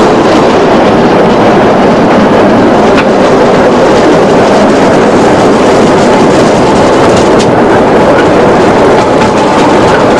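Small steam train running along the track, heard from the open platform of a wooden carriage: a loud, steady rolling noise of the wheels on the rails.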